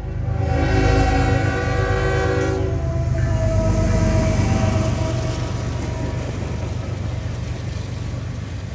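A freight locomotive sounds one long horn blast, a chord of several steady notes. Its pitch shifts lower about two and a half seconds in, and the horn fades over the steady rumble and wheel noise of the passing train.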